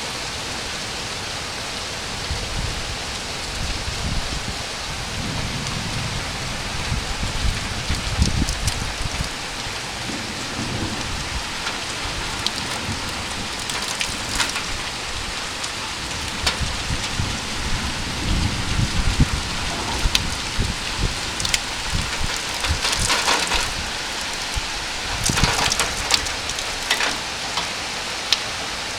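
Rain falling steadily in a hissing wash, with sharp splats of drops striking close by, strongest in the second half, and low rumbles now and then.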